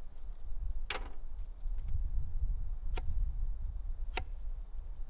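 A kitchen knife knocking sharply on a cutting board three times while cutting vegetables: once about a second in, then around three and four seconds in. A steady low rumble, like wind on the microphone, runs underneath.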